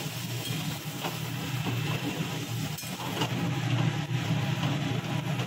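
Ivy gourd frying in a metal kadai, sizzling after water is poured in, with a steel spatula scraping and stirring now and then, over a steady low hum.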